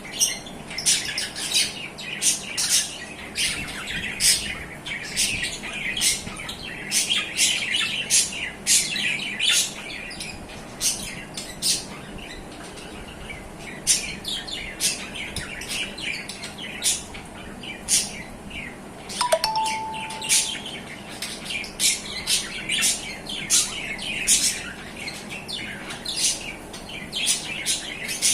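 A pair of adult budgerigars chirping and chattering continuously, a rapid stream of short, sharp, high calls. A brief steady tone sounds once about two-thirds of the way through.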